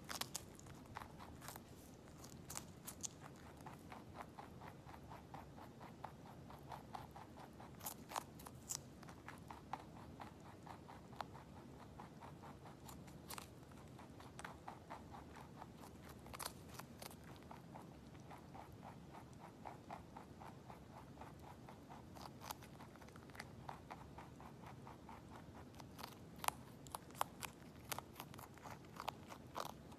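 Lop-eared pet rabbit chewing a green vegetable stalk held out to it: a fast, faint run of crunching bites with a few louder ones.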